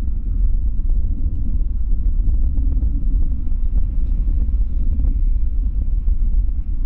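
Steady low rumble of a Boeing 787-9's jet engines as the airliner rolls along the runway, with no breaks or changes in pitch.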